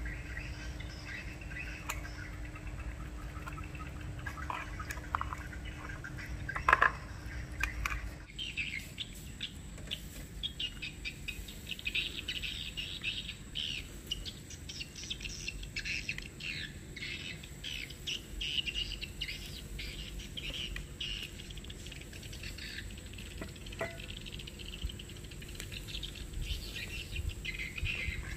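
Wet squishing as skewered squid is handled in its marinade, with one loud squelch about seven seconds in. Then, after an abrupt change, many small birds chirping continually.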